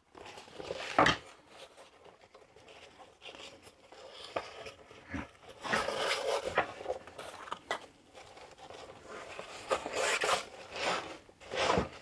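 Backpack fabric rustling and scraping against a wooden table as the pack is handled and laid flat, with elastic shock cord pulled through its webbing loops. It comes as a run of short, irregular bursts, the sharpest and loudest about a second in.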